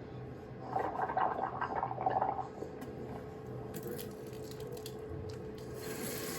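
Mouthwash being swished around in the mouth: a wet squishing about a second in that lasts around two seconds.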